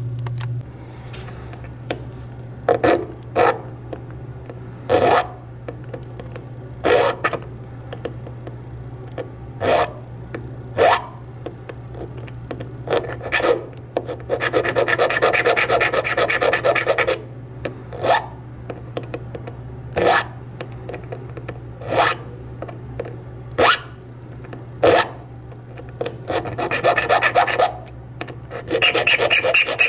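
Triangular steel file rasping notches into the edge of a copper-plated zinc penny, cutting through the copper to the zinc: single strokes a second or two apart, then spells of fast back-and-forth filing about halfway through and again near the end. A steady low hum runs underneath.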